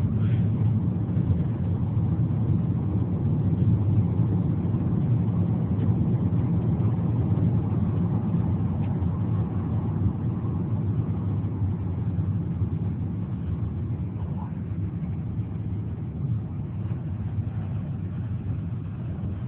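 Steady road and engine rumble inside a moving car's cabin, growing a little quieter over the last few seconds.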